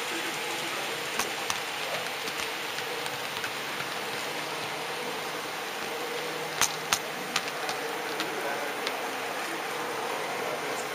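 Model train running along its track, heard from on board: a steady rolling hiss with a faint hum, and scattered sharp clicks as the wheels pass rail joints and points, the loudest a pair of clicks a little past the middle.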